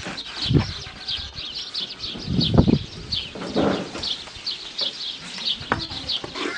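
Small birds chirping rapidly and continuously, with three louder, dull low bursts about half a second, two and a half and three and a half seconds in.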